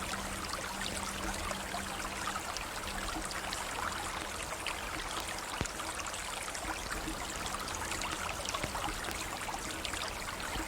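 River water flowing steadily over stones, an even rushing with small trickles and splashes. A faint low musical tone fades out in the first couple of seconds.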